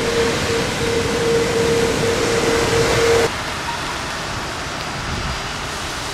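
Boeing 787-9 airliner's Rolls-Royce Trent 1000 engines running with a steady whine over a loud rushing noise as the jet rolls out on a wet runway after landing. A little after halfway the whine cuts off abruptly and the sound drops to a quieter steady rush.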